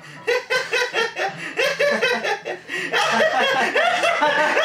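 Two men laughing out loud in quick repeated bursts, the laughter growing louder about three seconds in.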